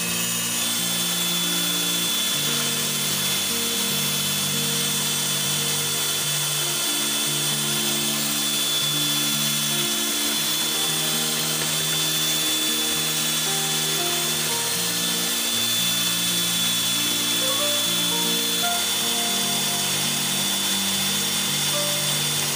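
Hand-held electric mixer running steadily with a high motor whine, its beaters whipping all-purpose cream in a stainless steel bowl until it thickens and grows in volume. Background music with a stepping melody plays over it.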